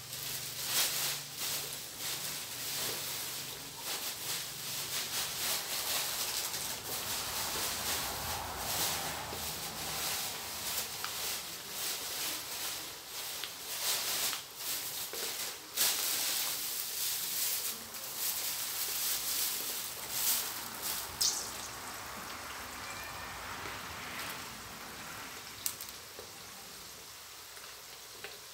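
Sweet dried fish deep-frying in hot oil in a wok, sizzling with dense crackling and popping that thins to a softer, steadier sizzle for the last several seconds.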